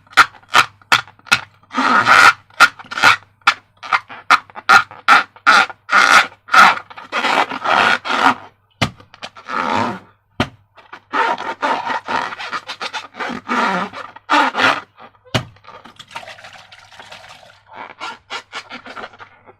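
Rubber balloons and slime being worked by hand: a fast run of squeaky rubbing strokes, about three a second, giving way to longer, slower strokes and turning fainter near the end.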